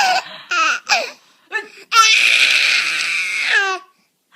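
A baby laughing: a few short high-pitched bursts in the first second, then one long, high, strained squeal of laughter lasting nearly two seconds.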